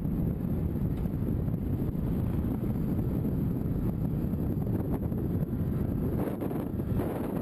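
Steady low wind rumble buffeting the microphone of a maxi-scooter riding at road speed, with the scooter's running noise mixed in beneath it.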